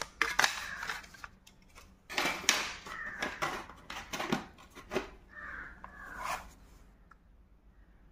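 Something being opened by hand: irregular bouts of rustling and crinkling with sharp clicks and taps, thinning out after about seven seconds.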